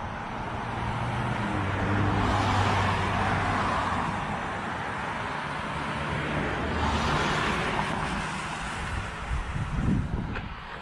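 Road traffic going by: two cars pass in turn, each a swell of tyre and engine noise that rises and fades, the first loudest two to three seconds in and the second about seven seconds in.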